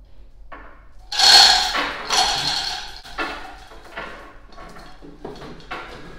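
Metallic clattering and rattling as the lifting strap and crane chain are pulled free from the transformer, loudest about a second in, followed by a few lighter knocks and rattles.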